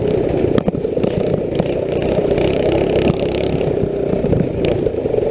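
Small engine of a go-kart running under throttle while driving over rough ground, with a few sharp knocks along the way.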